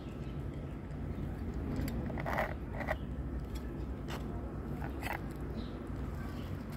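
A metal spoon clinks and scrapes against an open tin of wet cat food in several short sharp clicks, over a steady low rumble.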